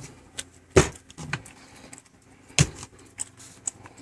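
Several sharp knocks and clicks, the loudest just under a second in and again about two and a half seconds in, with lighter taps between.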